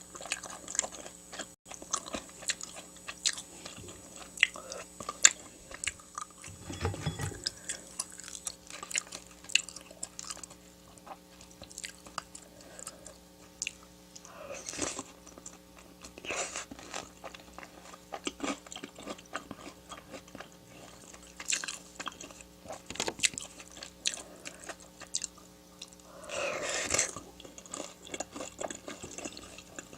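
Close-miked eating of Korean-Chinese takeout food: chewing and crunching with many small sharp mouth clicks, and a few longer, louder noisy stretches about 7, 15 and 27 seconds in.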